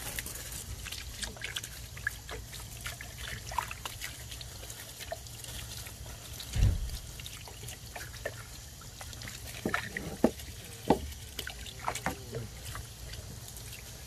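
Water from an open garden hose splashing and trickling over bones and wet wooden steps as they are rinsed. There are scattered small knocks, and a low thump about halfway through.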